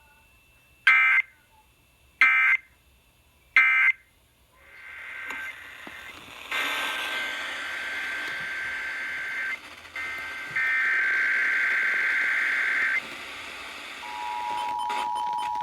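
Emergency Alert System data tones over broadcast audio: three short screeching bursts, the end-of-message code that closes the test. Radio hiss then comes up, a longer burst of the same data tones follows, and near the end the steady two-tone EAS attention signal starts.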